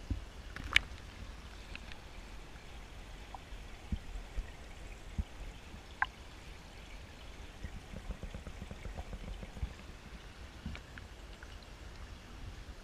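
Swimming-pool water sloshing and dripping around a camera held at the surface, over a low rumble, with scattered small splashes and drops. The sharpest comes about a second in, another about six seconds in.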